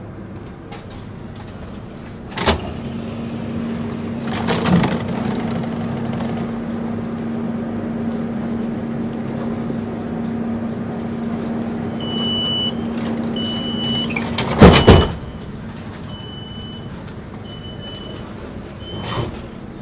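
Passenger doors of a DUEWAG B80D light-rail car at a station stop. A knock, then a steady hum while the doors stand open, then a row of short high warning beeps about once a second. A loud double thud as the doors shut comes partway through the beeps, and the hum stops with it.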